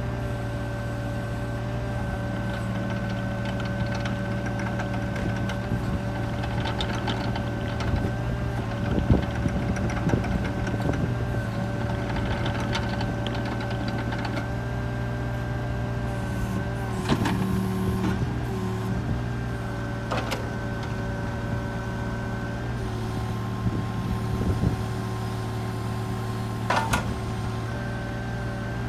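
Hitachi excavator's diesel engine running steadily, with a few short knocks and clunks, and the tone shifting slightly a couple of times.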